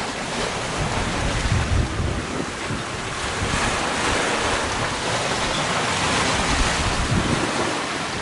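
Wind gusting on the microphone over the rush of waves around a sailing yacht under way in rough sea.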